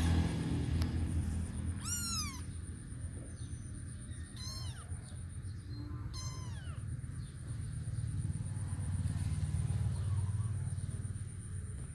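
Young kitten mewing three times in the first half, thin high mews about two seconds apart, each rising briefly then falling. A steady low rumble runs underneath.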